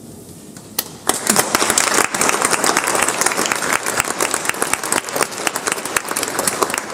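Audience applauding: a few scattered claps, then dense, steady applause from about a second in.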